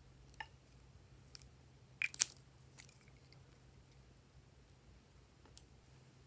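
Scissors snipping and crunching through small plastic tubes, a few sparse clicks with a loud close pair of snips about two seconds in and a faint one near the end.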